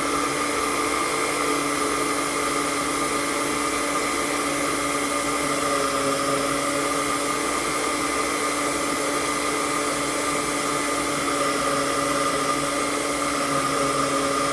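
Blender motor running steadily at an even pitch, blending fruit into a smoothie.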